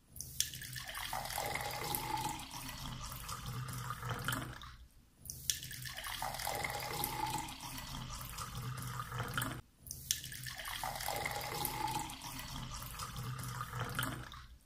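Water poured in a stream into a tall drinking glass, splashing steadily as the glass fills, picked up by a clip-on lavalier microphone lying right beside it. The pouring breaks off briefly twice, about five and ten seconds in.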